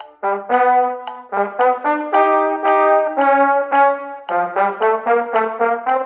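Brass instruments playing a fast, many-noted marching-band piece below its full tempo: quick runs of short, separated notes, several parts sounding together.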